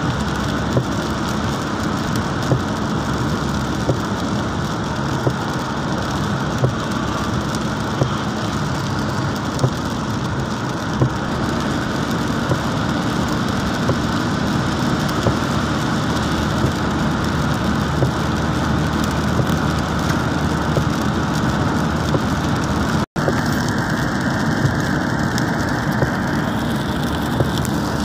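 Rain on a moving car's roof and windscreen, mixed with tyre noise on the wet road, heard from inside the car. Small ticks stand out about every second and a half, and the sound cuts out for an instant a little before the end.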